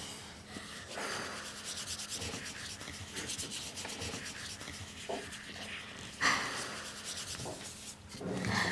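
Paintbrushes scrubbing on paper in repeated scratchy strokes, with a louder scrape about six seconds in.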